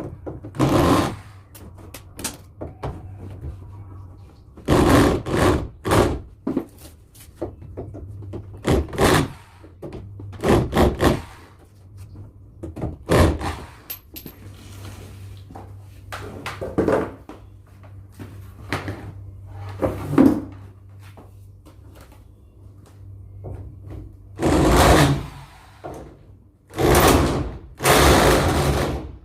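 Irregular knocks, thuds and scraping of a wooden partition being pried and pulled apart by hand, in uneven bursts, over a steady low hum.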